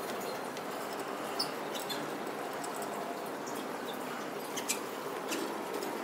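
Caged canaries giving a few short, high chirps and cheeps over a steady background hiss, the loudest about a second and a half in and again about three-quarters of the way through.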